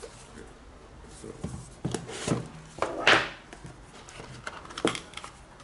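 Cardboard box being handled and opened: a few light taps and rubs, then a brief scraping swish about three seconds in as the snug lid slides off. A sharper knock comes near the end.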